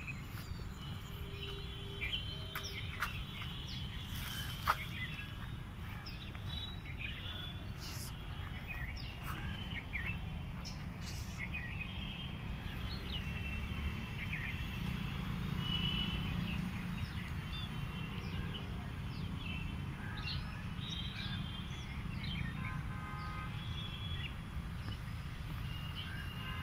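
Small birds chirping and twittering on and off over a steady low rumble of outdoor background noise, with one sharp click about five seconds in.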